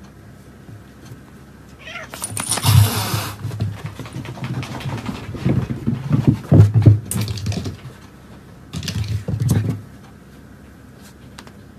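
A cat growling and yowling in several bouts starting about two seconds in, the first opening with a hiss: a defensive warning to a Jack Russell terrier puppy pestering it in its bed.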